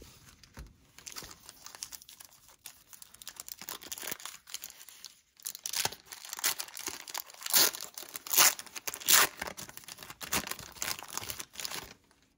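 A 1990 Pro Set football card pack's paper wrapper being torn open and crinkled by hand: irregular crisp crackling and tearing, sparse at first, then louder and denser in the second half.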